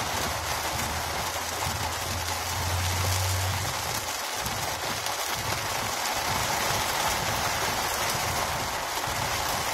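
Heavy rain pelting down on a car, a steady hiss heard from inside the vehicle. A low hum comes in about a second in and fades out near four seconds.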